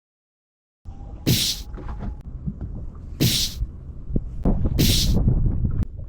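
Boat running across wind-whipped chop: a steady rumble of wind buffeting the microphone, with four sharp hissing splashes of spray from waves hitting the hull, about one every second and a half or two.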